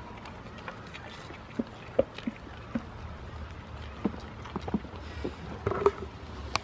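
Goats' hooves knocking and clattering in irregular, uneven strikes, with a short flurry of louder knocks near the end, over a steady low rumble.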